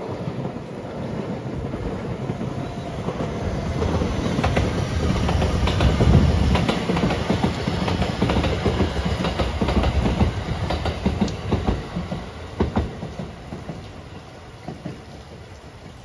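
Marine Liner electric multiple-unit train passing, its wheels clicking over the rail joints. The rumble builds to its loudest about six seconds in, then fades over the last few seconds, leaving steady rain.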